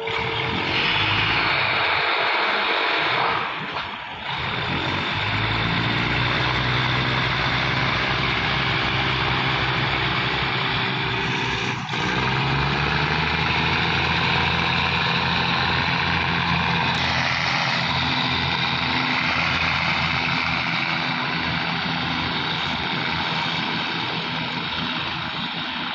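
Diesel multiple-unit train pulling away under power, its engines running loud and steady with a hiss of mechanical noise. The engine pitch steps up about five seconds in and again about twelve seconds in as the train accelerates.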